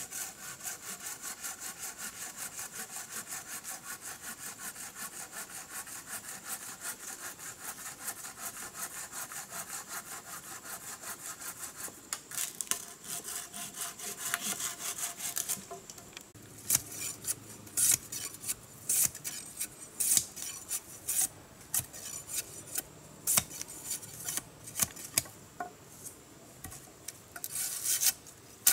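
Hand saw cutting through a wooden log in a fast, steady back-and-forth rhythm. About halfway through it gives way to louder, irregular sharp chops of a large knife blade striking a wooden pole.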